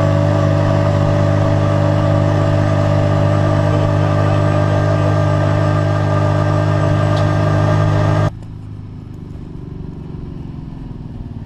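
A vehicle engine running loud and even at a steady speed. About eight seconds in it cuts off suddenly to a quieter engine sound with a fast, regular pulsing, its pitch slowly falling.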